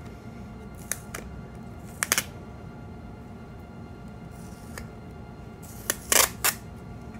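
Hands picking at packing tape on packaging, making a few short, sharp crackles, the loudest cluster about six seconds in, over a steady background hum.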